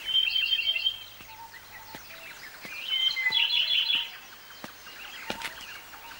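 Birds chirping in a forest ambience: a burst of rapid high twittering at the start, a second, longer burst about three seconds in, and scattered single chirps between.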